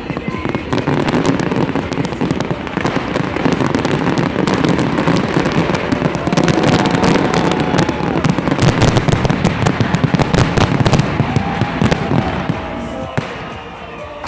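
Dense fireworks barrage: many shells bursting together in booms and rapid crackling, easing off near the end.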